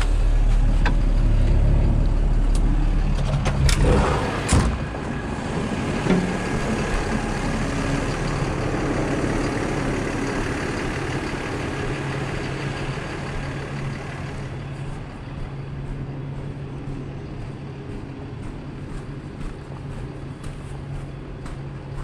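Yard truck (terminal tractor) engine running as it drives across the yard, with a heavy low rumble at first, a few sharp knocks about four seconds in, then a steadier, quieter run that slowly fades.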